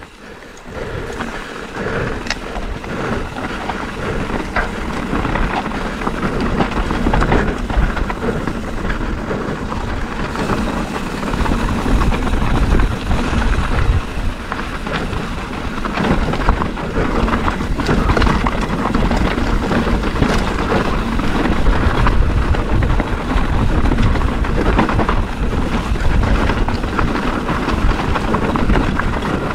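Riding noise from a mountain bike on a rocky gravel trail: wind buffeting the camera's microphone over the rumble and rattle of tyres on loose stones. It is a steady, loud rush that builds over the first couple of seconds as the bike picks up speed.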